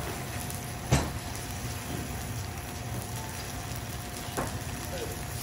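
Hiroshima-style okonomiyaki sizzling on a hot steel teppan griddle while a metal spatula cuts and scrapes through it, knocking sharply on the plate about a second in and more lightly near the end.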